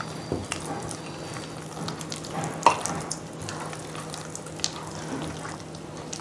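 A hand squishing and mixing a thick, wet palm-pulp batter in a steel bowl, with scattered clicks and one sharper knock about two and a half seconds in.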